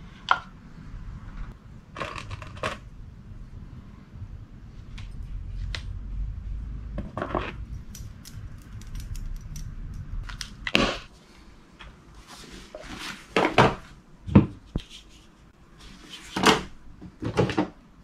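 Small clicks, knocks and rattles of lures and hooks being handled in a hard plastic clamshell lure case, with a few short scraping rustles. A low background rumble stops about eleven seconds in.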